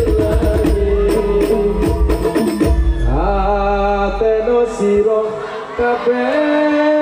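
Men singing Islamic sholawat into microphones over hand drums. About three seconds in the drums stop and the sung voice carries on alone in long, drawn-out notes.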